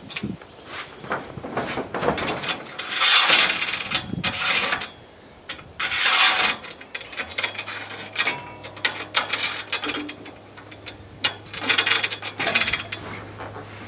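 Mechanical ratcheting and rasping in bursts of half a second to a second and a half, with scattered clicks, from work on solar-panel mounting hardware. A low steady hum comes in about seven seconds in.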